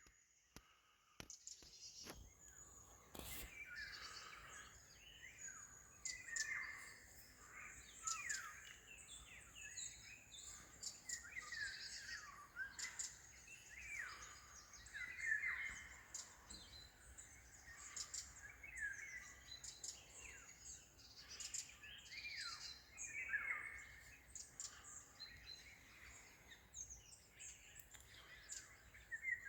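Several songbirds singing at once, a continuous chorus of short, overlapping chirps and trills.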